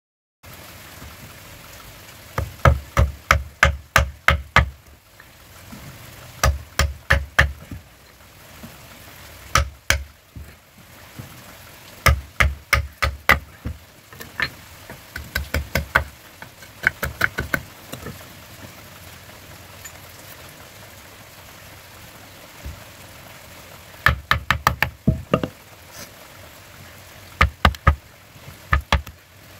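A heavy steel blade chopping a block of wood to shape a knife handle: quick bursts of sharp knocking strikes, four to eight in a row, separated by short pauses.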